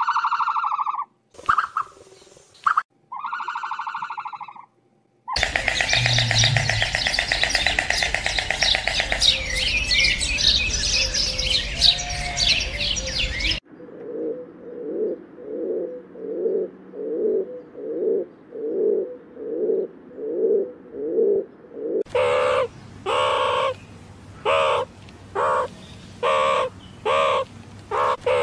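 A string of different animal calls, mostly birds, changing abruptly every few seconds. A few short pitched calls open it. About five seconds in, a loud, dense chorus of chirping starts; about halfway through it gives way to evenly repeated calls at roughly one a second, and these turn into louder repeated calls near the end.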